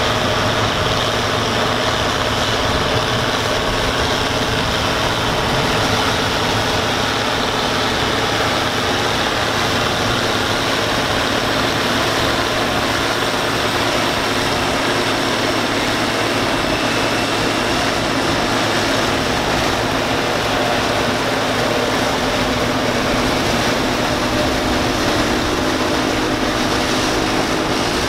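Allis-Chalmers 190XT tractor engine running steadily under load while it powers a Gehl 750 forage harvester chopping standing corn. The engine's drone blends with the harvester's constant chopping and blowing of silage into the wagon.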